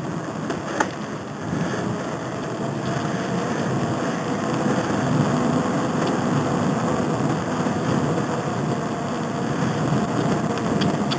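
Wind buffeting the microphone of a bicycle-mounted camera, mixed with the tyres rolling on an asphalt trail: a steady rushing rumble. A single sharp click about a second in.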